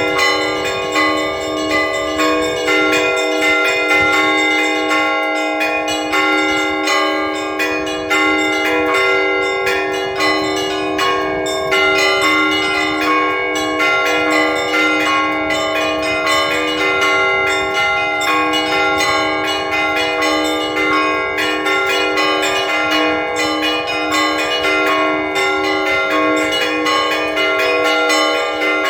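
Orthodox church bells rung in a festive peal: several bells struck in a quick, unbroken pattern, their ringing tones overlapping.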